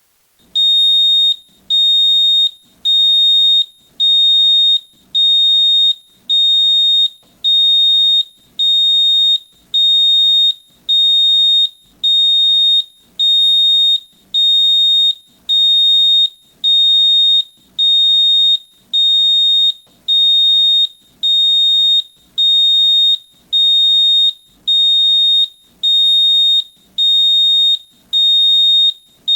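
JIC gas leak alarm sounding its warning: a loud, high-pitched electronic beep repeating about once a second, each beep lasting nearly a second with short gaps between. It starts about half a second in.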